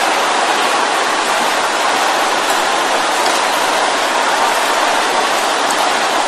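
A large congregation praying aloud all at once, many voices merging into one steady roar.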